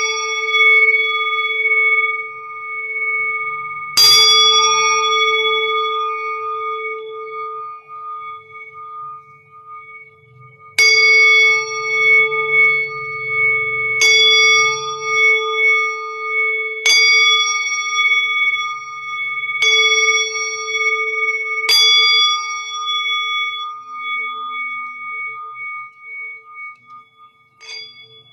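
A singing bowl struck with a mallet about six times, a few seconds apart. Each strike rings on in long, steady overlapping tones. The tones pulse as they die away near the end, and a light tap comes just before the end.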